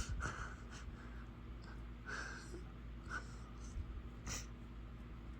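A man breathing and sniffling quietly while emotional, over a steady low background hum, with a couple of faint clicks.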